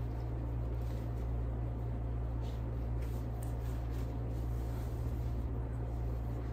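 Steady low background hum, with faint fabric rustling and a few soft ticks as a cloth hair cap is stretched and pulled over the head.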